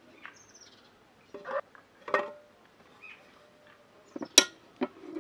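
Knocks and clatter from a double-sided die-cast aluminium grill pan as its lid is swung shut over the fish and the handles brought together, with a sharp metallic clack about four seconds in, the loudest of the knocks.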